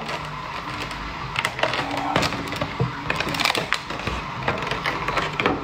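Clear plastic clamshell food container crackling and clicking as it is handled, in a string of irregular clicks.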